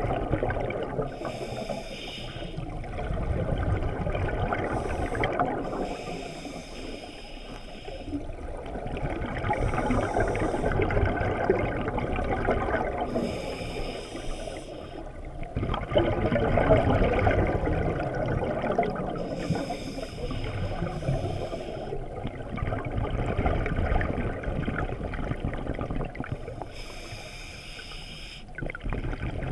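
Scuba diver breathing through a regulator underwater: a short hissing inhale every few seconds, alternating with long low gurgling rumbles of exhaled bubbles.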